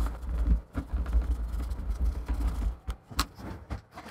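Handling noise as a plastic parts box is reached for and opened: a low rumble with soft knocks, then two sharp clicks about three seconds in and a few lighter clicks.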